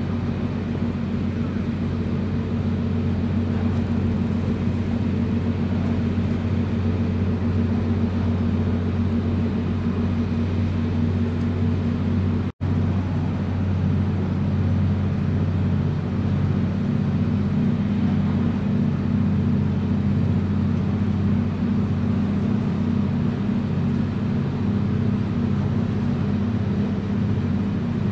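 Steady low drone of a coastal container ship's diesel engine, heard across the water as it passes. The sound cuts out for a moment about halfway through.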